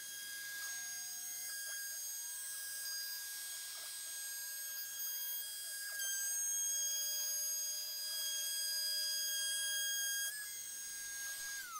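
Router spindle of a Shapeoko 3XL CNC router running with a steady high whine while it cuts a chamfer along the plaque's edges; near the end the pitch drops as the spindle spins down.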